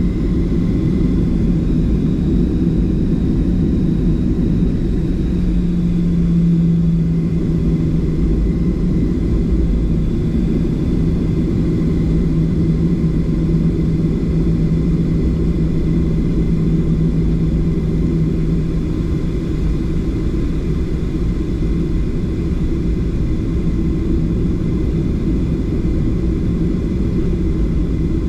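Steady rumble of a Boeing 737's jet engines and airflow heard inside the passenger cabin, with a steady hum that fades out about two-thirds of the way through.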